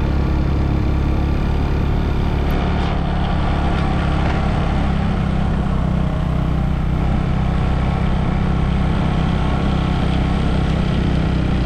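Motor vehicle engine running steadily on the move, a constant low hum with road noise and no change in pace.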